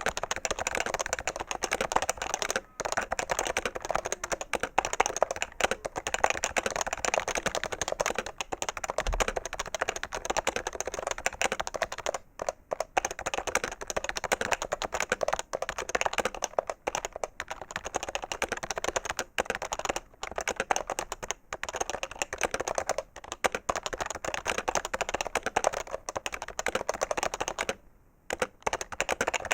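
Continuous fast typing on a PFU HHKB Professional 2 keyboard with Topre electrostatic capacitive keys: a dense, uneven stream of key strokes. It stops briefly about three seconds in, around the middle, and again near the end.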